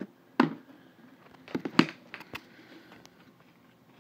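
Handling noise from a phone being propped up: a few knocks and bumps on the phone, one about half a second in, a louder cluster just under two seconds in, and a last small knock a little later.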